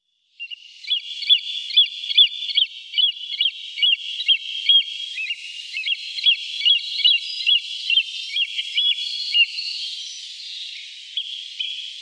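Bird chirping: short, high, downward-gliding notes repeated about two to three times a second over a steady high trill.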